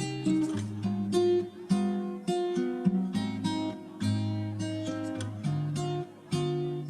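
Background music: an acoustic guitar picking a melody in separate plucked notes, each ringing and fading.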